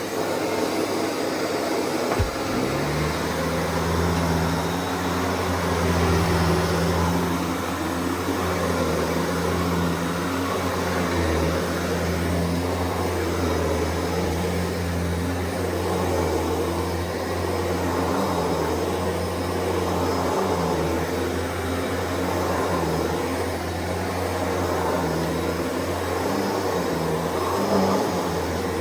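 Shark Duo Clean Detect XL (LA791UKT) corded upright vacuum cleaner running, a steady motor drone with small swells in level. There is a click about two seconds in, after which a deeper hum settles in.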